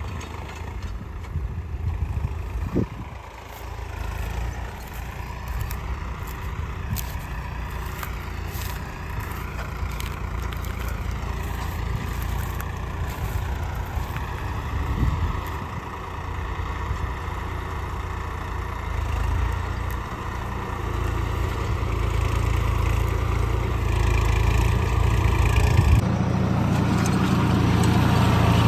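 Swaraj 960 FE tractor's three-cylinder diesel engine running steadily under load while pulling a two-bottom reversible mouldboard plough through heavy soil. It grows louder over the second half.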